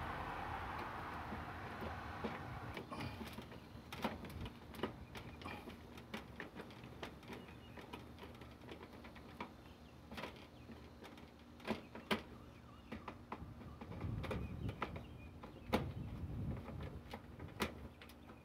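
Scattered, irregular faint clicks and ticks of a hand screwdriver turning the screws of a plastic camera mounting plate. Under them is a low rumble that fades over the first couple of seconds.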